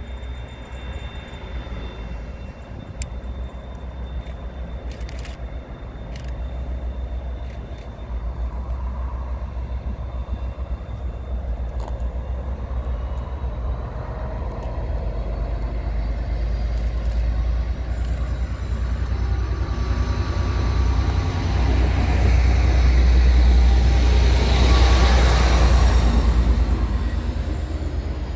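Class 57/3 diesel-electric locomotive 57306, with its EMD two-stroke V12 engine, running with a deep rumble as it hauls a train of coaches into the station. It grows steadily louder as it approaches and is loudest as it passes close by about three-quarters of the way through, with wheel and rail noise mixed in.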